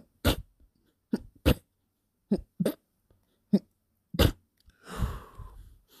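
A person's fit of stifled sneezes: about eight short, sharp sneezes in quick succession, some in pairs, followed near the end by a longer breathy exhale.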